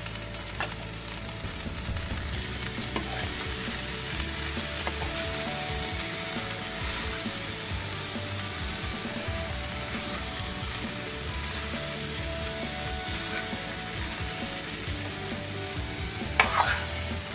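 Mixed vegetables and grated coconut sizzling as they roast in a kadai while a metal spoon stirs and scrapes through them. Near the end, a couple of sharp clinks of the spoon against the pan.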